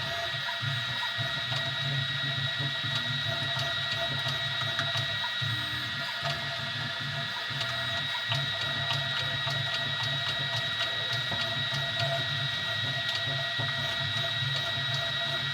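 Easythreed X2 3D printer printing: its stepper motors whir with a steady high whine and a low hum that keeps shifting as the print head moves, with faint ticks throughout.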